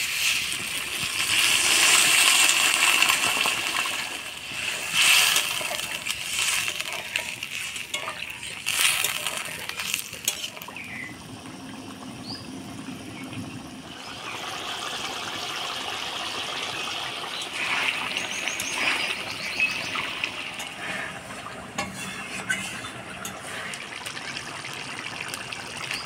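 Water poured into a hot wok of masala with fried eggs and jackfruit seeds, gushing and sizzling loudly for the first few seconds. A metal spatula then clinks against the wok as the curry is stirred, and the thin gravy settles to a quieter simmer.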